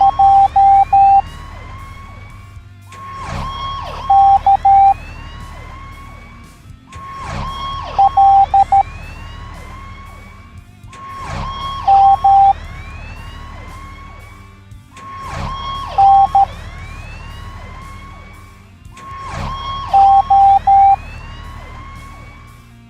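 Morse code letters sounded as short and long beeps on one steady pitch, a group about every four seconds, six groups in all. Each group comes just after a brief siren-like sound effect, over a low steady background drone.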